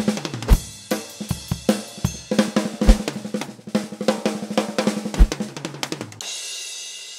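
Upbeat background music driven by a drum kit with kick, snare and hi-hat, ending about six seconds in on a cymbal crash that rings and fades.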